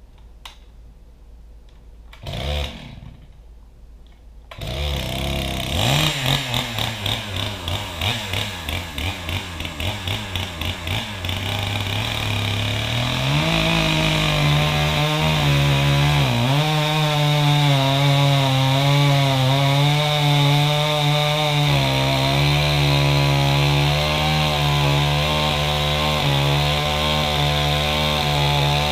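Woodland Mills HM126 bandsaw mill's gasoline engine starting about four seconds in and idling with a pulsing beat, then throttled up around thirteen seconds to run loud and steady at speed with a slightly wavering pitch.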